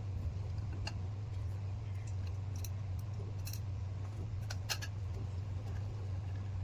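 Small screws being fitted and driven with a screwdriver into the casing of an audio interface: a few scattered sharp metallic clicks, the loudest a little before the five-second mark, over a steady low hum.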